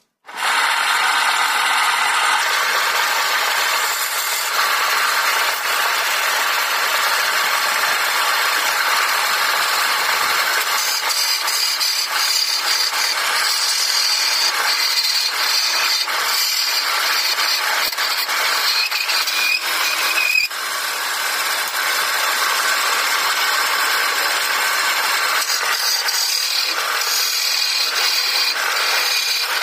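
Wood lathe running while a hand-held turning chisel cuts into a spinning wooden blank, a steady rasping cut with chips flying off. It starts abruptly about half a second in and keeps going, with a brief drop in level about two-thirds of the way through.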